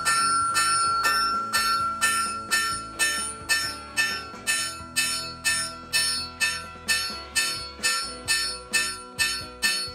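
Hand hammer striking red-hot steel on an anvil in a steady run of blows about twice a second, each blow leaving the anvil ringing.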